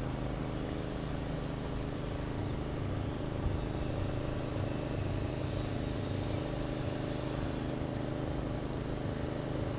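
A running motor's steady, unchanging hum, with constant low droning tones over an even background hiss.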